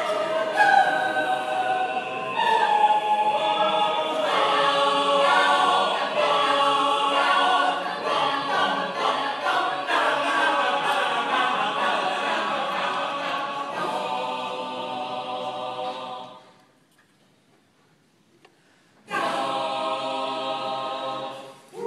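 Mixed choir singing a cappella in full chords, stopping about sixteen seconds in for a near-silent pause of two or three seconds, then coming back in on a held chord that breaks off just before the end.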